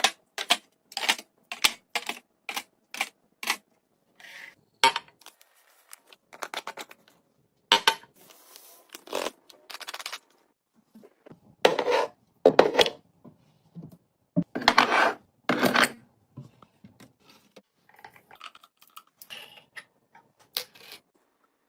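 Hard containers clinking and clattering as they are set down and arranged during a restock. It opens with a quick run of sharp taps, about two a second, and has longer scraping or rustling sounds about two-thirds of the way in.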